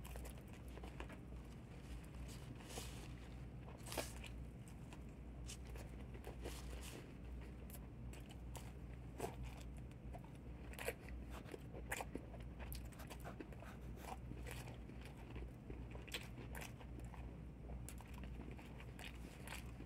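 A person chewing crispy fried chicken wings: faint crunches and clicks come at irregular intervals over a steady low hum.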